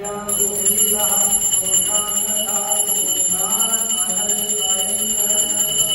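Temple bell rung for the aarti, starting abruptly just after the start and ringing on without a break as one steady high ringing. Devotional singing and music go on underneath.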